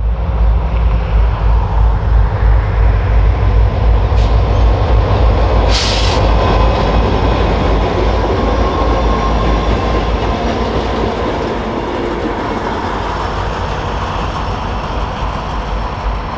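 Several Norfolk Southern diesel-electric locomotives running light, with no cars, passing close by at about 25 mph: deep steady engine rumble with wheel and rail noise. It is loudest in the first half and fades slowly as the units pull away, with one brief sharp noise about six seconds in.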